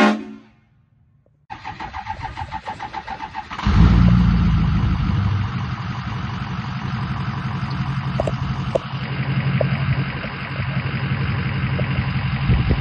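Diesel pickup truck engine being cranked by its starter for about two seconds, then catching and settling into a steady idle.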